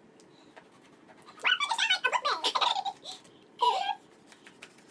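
Two people laughing and making short vocal sounds, in two bursts about a second and a half and three and a half seconds in, with faint clicks of knives cutting lemons on plastic plates.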